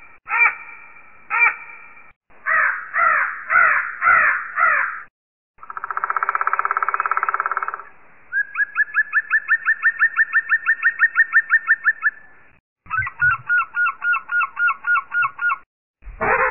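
Synthesized bird calls from the FK1320 animal-sound kit's one-time-programmable sound chip, played through a small speaker. It steps through several different calls with short gaps between them: repeated short calls, a run of pulsed calls, a buzzy held tone, a long fast train of rising chirps, then a rapid pulsed call, and the next sound starts near the end.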